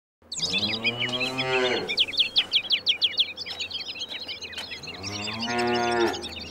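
A cow mooing twice, one long call near the start and a shorter one near the end, over steady chirping from many small birds.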